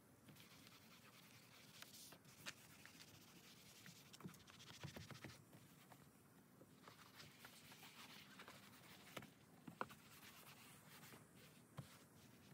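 Faint scrubbing on a truck's interior door panel: a brush and magic eraser working all-purpose cleaner into the plastic and vinyl, with a few light clicks and knocks.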